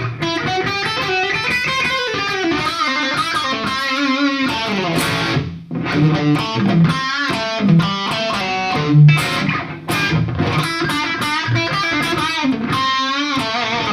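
Ibanez Jem electric guitar through a Kemper profile of a 1959 Marshall Super Lead Plexi with the DS distortion stomp, playing overdriven lead lines with bent notes and vibrato. There is a short break about halfway through.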